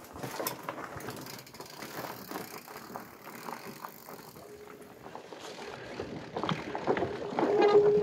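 Pole Taiga fatbike being ridden over a rough forest trail: tyres rolling and the loaded bike rattling with many small irregular knocks, louder towards the end. Near the end a steady buzzing tone comes in.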